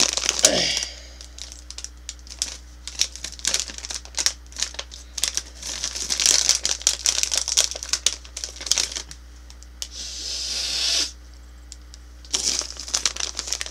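Plastic Twizzlers candy bag crinkling and rustling as hands reach in and handle it, in irregular bursts of sharp crackles with a longer rustle near the end.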